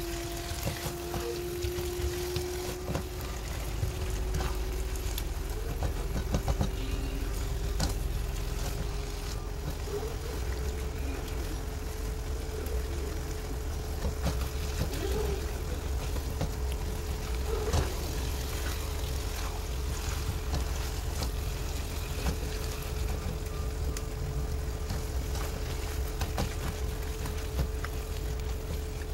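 Silicone spatula scraping and knocking against a non-stick wok as crumbled food is stirred, with soft irregular clicks and scrapes. Under it runs a steady low hum and a constant mid-pitched drone that rises slightly in the first few seconds and then holds.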